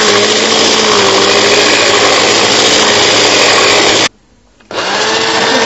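Electric hand mixer running steadily with a motor hum, its beaters whisking eggs with sugar in a plastic bowl. It cuts out about four seconds in and starts again about half a second later.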